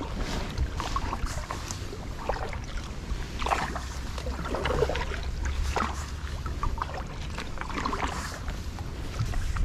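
Water splashing and lapping irregularly around a kayak, over a steady low rumble of wind on the microphone.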